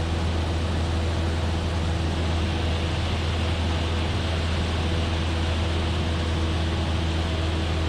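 Cessna 172F in flight, heard inside the cabin: its six-cylinder Continental O-300 engine and propeller running at a steady setting, a constant drone with a deep hum and a few faint steady tones above it.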